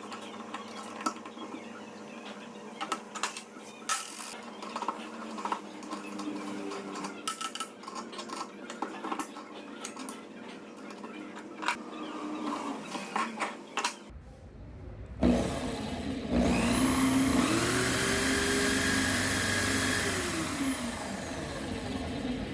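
Scattered light clicks and knocks of wood and tools being handled. About 15 seconds in, the drill-driven homemade wood lathe starts up. Its electric drill motor whines, rising in pitch about a second later, running steadily, then winding down near the end.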